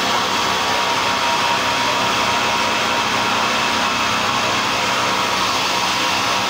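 Steady, loud din of heavy tunnelling machinery inside a construction tunnel: engines running under a hiss of rushing air, with no let-up.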